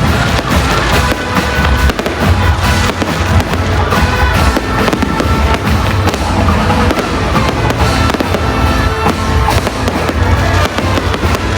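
Fireworks bursting in rapid, overlapping bangs and crackles throughout, over loud music playing at the same time.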